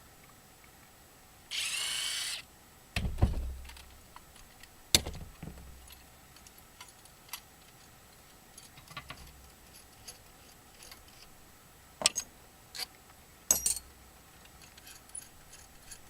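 A cordless drill/driver whirs once for about a second, followed by several sharp metallic clanks and knocks, a few in quick pairs, as scrap metal parts are handled and dropped.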